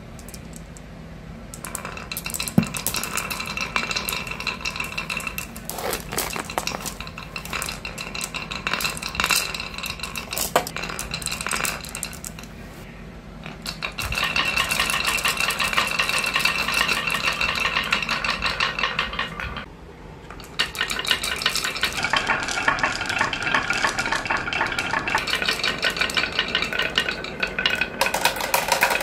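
Glass marbles rolling and clattering through a marble run: a dense rattle of clicks and clinks in long stretches, with brief lulls between.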